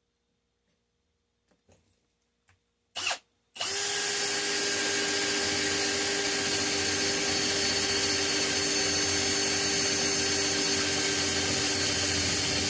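Electric drill boring a hole in a homemade aluminium bus bar. It gives a short blip about three seconds in, then runs steadily.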